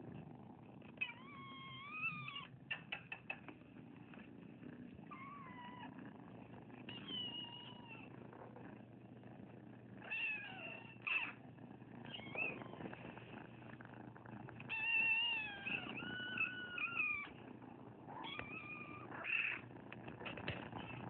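Young kittens meowing in repeated high calls, some bending up and down in pitch, over a steady low purring. A few quick clicks come about three seconds in.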